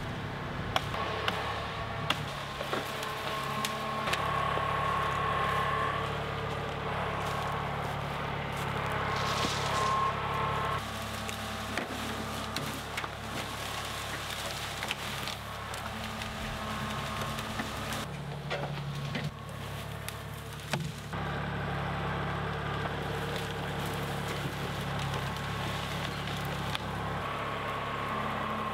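Kubota compact tractor's diesel engine running steadily, with repeated sharp chops and the crackle of branches being cut and broken.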